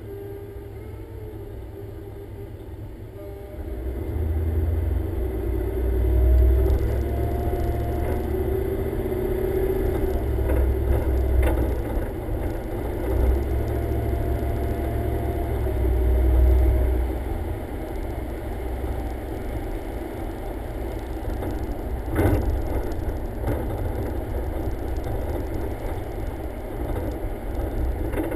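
Car driving through city streets, heard from a microphone mounted outside on the front of the car: low engine and road rumble with wind buffeting the microphone in uneven gusts, growing louder about three seconds in as the car picks up speed.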